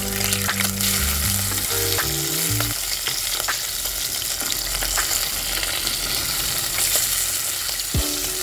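Katla fish pieces sizzling steadily as they fry in hot mustard oil in a steel pan, with a wooden spatula clicking and scraping against the pan now and then as the pieces are turned over.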